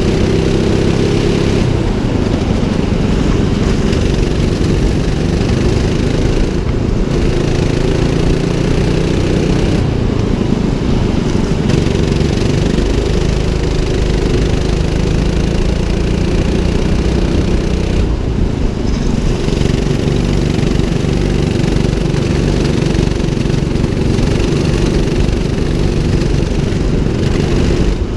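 200cc rental go-kart engine running hard on track, its note rising and falling again and again as the throttle is opened on the straights and eased into the corners.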